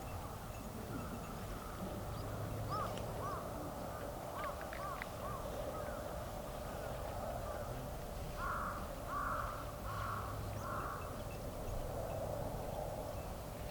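A crow cawing four times in a row about two-thirds of the way in, after a series of shorter, lighter bird calls.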